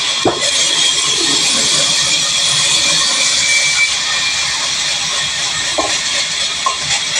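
Large vertical band saw running and cutting through a wooden plank: a steady, loud hiss, with a couple of knocks of wood against the saw table.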